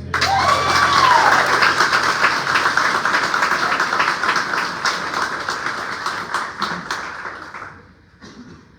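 Church congregation applauding and cheering at the end of a song, with a whoop from one voice right at the start; the clapping tails off and dies away about eight seconds in.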